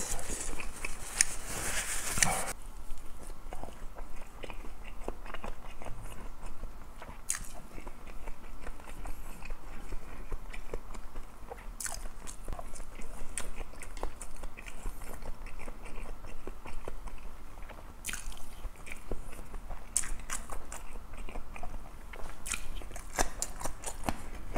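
A person chewing and biting food close to the microphone, many small wet clicks of mouthfuls of Korean blood sausage, with sharper crunchy bites around two-thirds of the way through and again near the end. It opens with about two seconds of rustling from a tissue wiping the mouth.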